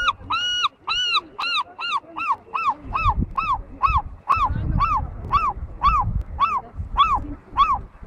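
A gull calling in a long, fast series of short arched notes, about three a second, each rising and falling in pitch.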